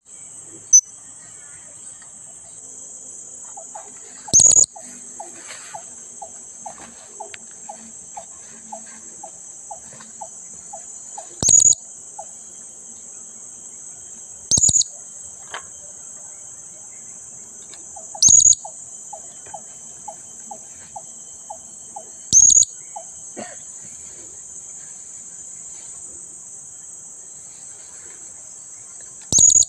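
Blue-crowned hanging parrot giving short, shrill, high calls, six in all, spaced a few seconds apart, over a steady high-pitched drone of insects. Faint runs of rapid lower notes come twice between the calls.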